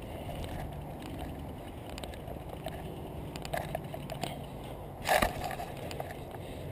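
Specialized mountain bike rolling slowly over grass: steady tyre and riding noise with a few faint ticks, and a short, louder rush of noise about five seconds in.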